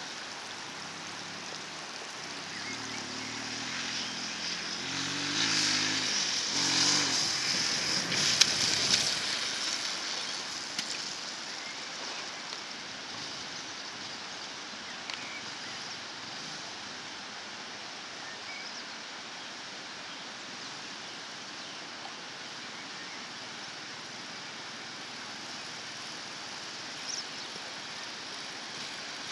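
An off-road vehicle's engine grows louder as it approaches, passes loudest about seven to nine seconds in with a couple of sharp knocks, then fades away. A steady background hiss remains after it has gone.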